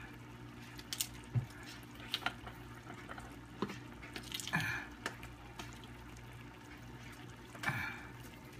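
Ground pork and tomato in chicken stock simmering in a frying pan, bubbling with scattered small pops and a few louder bubble bursts, one midway and one near the end.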